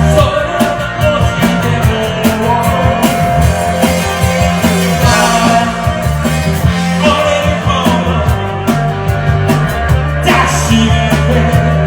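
Rock band playing: electric guitar and bass over a steady drum beat.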